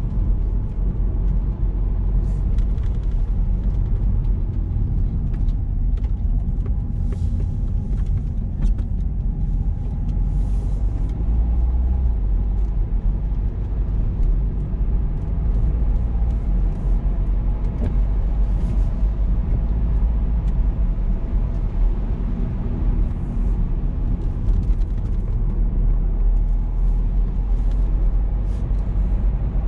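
Car driving at a steady pace: a continuous deep rumble of engine and tyres on the road, with scattered faint light ticks and clicks.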